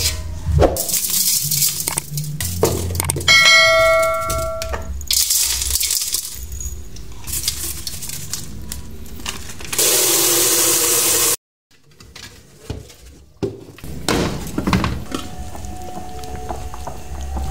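A large aluminium cooking pot clangs and rings for about a second and a half, about three seconds in, among scattered handling sounds of cloth and ingredients in the pot. Near ten seconds a steady rushing noise runs for about a second and a half and cuts off suddenly.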